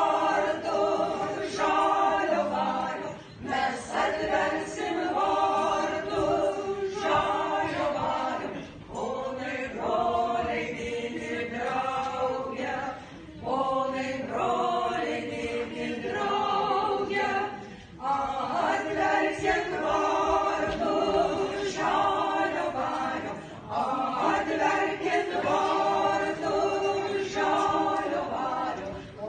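A small group of women singing a folk song a cappella, in phrases of a few seconds with short breaths between them.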